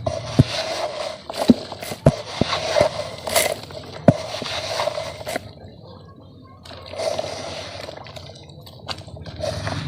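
Red dirt lumps being crumbled and smashed, with wet squishing and a few sharp cracks in the first four seconds, then softer crumbling.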